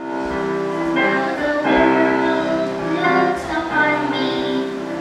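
Gospel song with accompaniment, sung by two boys into handheld microphones; the notes are held and change every second or so.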